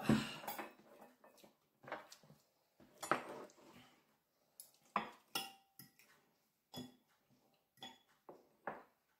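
Forks clinking and scraping on ceramic dinner plates during a meal: scattered short clicks, the loudest right at the start, and one brief ringing clink about five seconds in.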